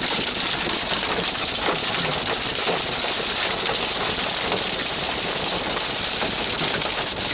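Very heavy thunderstorm rain mixed with hail pounding on a vehicle's roof and windshield, heard from inside the cab. It makes a dense, steady hiss, with scattered sharp ticks from hailstones striking.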